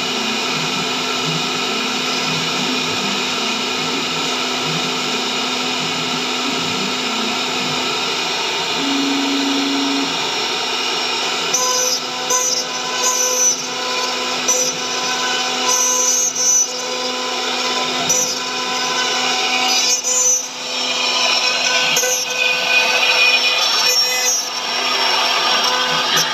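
CNC router spindle running with a steady whine as its bit carves grooves into a wooden ring turned on a fourth-axis rotary. From about halfway through, uneven rasping bursts of the bit cutting the wood are added.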